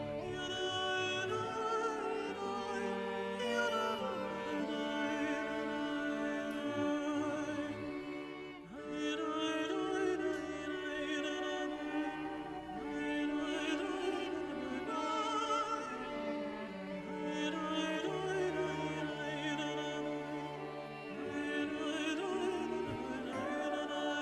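Background music: orchestral classical music with an operatic voice singing long notes with vibrato, pausing briefly about eight seconds in.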